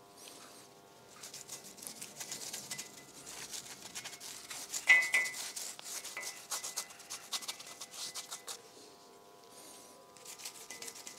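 Paintbrush scrubbing thick anti-rust metal paint onto a rough, pitted steel I-beam: a run of quick scratchy bristle strokes, with a sharper knock about five seconds in.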